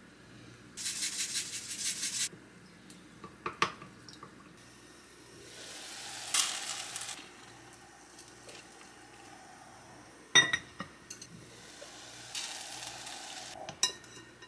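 Food sizzling in a frying pan in three bursts of a second or two each, with a few sharp knocks and clinks of a utensil against the pan or dishes.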